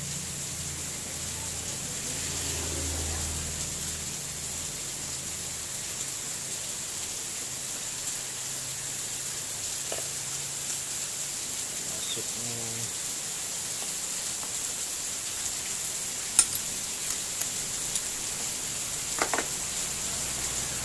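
Steady background hiss, with a few light clicks and knocks from a small four-stroke generator engine's cylinder head and block being handled and fitted together by hand; the sharpest click comes about 16 seconds in.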